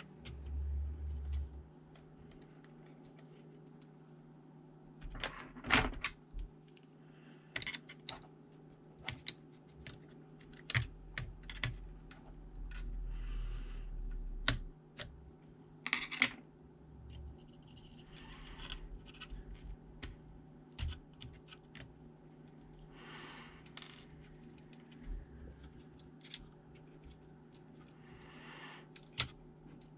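Irregular clicks, taps and light clatter of small plastic and metal laptop parts and screws being handled, with a few short scrapes, over a faint steady hum.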